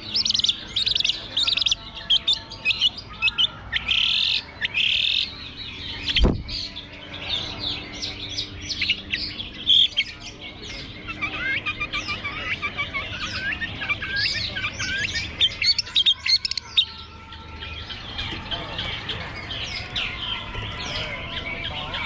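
Long-tailed shrike (cendet) singing: a fast, varied run of chirps and chattering calls that goes on without a break. A single sharp knock comes about six seconds in.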